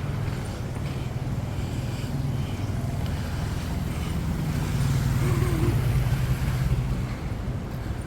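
Road traffic moving slowly through a flooded street: a steady low engine hum that grows louder about five seconds in as a vehicle passes close, then eases off.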